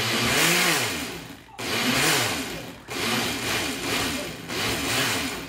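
Countertop blender motor running on a thick mixture of soaked rice, almonds and sugar water, going in four surges with short dips between, its pitch rising and falling with each, and stopping near the end.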